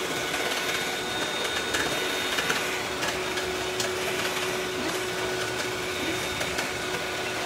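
A steady whirring hiss with a faint constant hum, holding level throughout.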